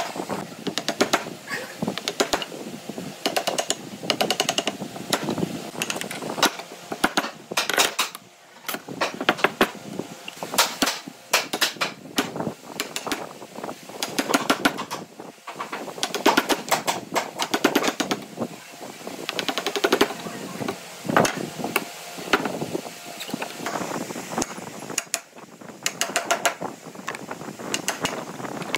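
Wood chisel being struck over and over to chop out a notch in a wooden beam. The blows come in quick runs with short pauses between them.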